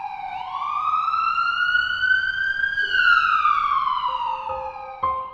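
Emergency vehicle siren wailing in a slow up-and-down sweep: falling, rising steadily for about two and a half seconds, then falling again. Piano notes come in near the end.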